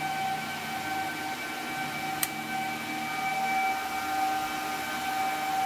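Steady whine and hiss of a running 1000 W FM power amplifier, with a single sharp click about two seconds in as the FM exciter is switched on.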